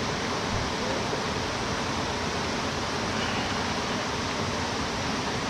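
Steady rush of a mountain stream's flowing water, an even hiss with no breaks.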